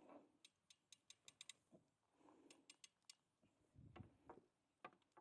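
Near silence broken by faint, quick clicks, several a second in short runs, with a few soft low knocks.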